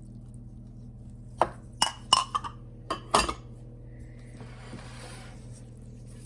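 A utensil knocking and clinking against a mixing bowl, about six sharp clinks with a short ring, as butter is added to pancake batter, followed by a faint scraping.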